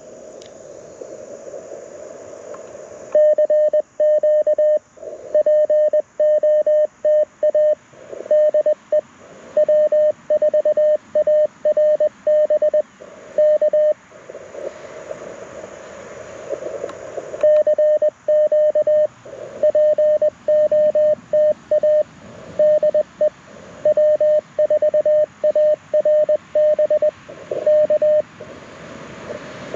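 Morse code (CW) from a Mountain Topper MTR4B QRP transceiver, played through a small portable speaker: a steady tone keyed into dits and dahs, in two long runs of about ten seconds each, with receiver hiss in the pause between them.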